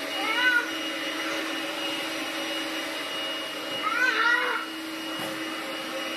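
Vacuum cleaner running steadily with a constant motor whine. Two short, high squeals sound over it, about half a second in and about four seconds in.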